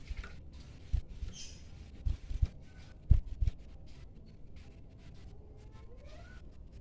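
A faint short bird call and a few soft gliding whistles, among several dull low thumps, which are the loudest sounds.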